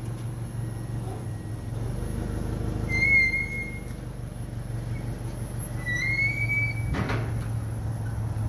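Toyota HiAce Super GL van's engine idling with a steady low hum. Two short, high whistle-like chirps come about three seconds apart, the second rising slightly, and a single knock sounds about seven seconds in.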